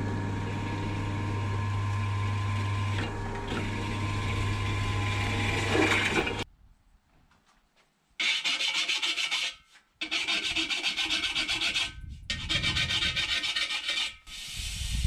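Bench pillar drill running with a step drill bit cutting a hole in 2 mm steel strip for a nutsert. After a brief gap, a hand file is pushed back and forth across the steel in quick strokes, deburring the drilled holes, in three runs.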